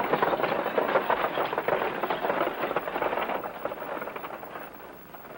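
Many horses' hooves galloping on a dirt road with a stagecoach rattling along behind them. It is a dense, rapid clatter that fades away over the last two seconds as the coach pulls off.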